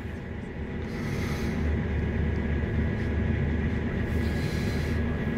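Steady low machine hum inside a tractor cab, with a faint steady high whine over it.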